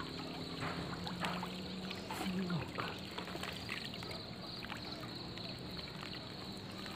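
Water splashing and trickling in short, irregular bursts, over a steady high-pitched drone.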